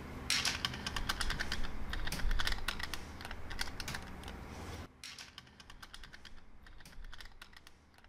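Small neodymium magnetic balls clicking and snapping against one another as they are handled: a quick, dense clatter of clicks for about five seconds, then sparser, quieter clicks.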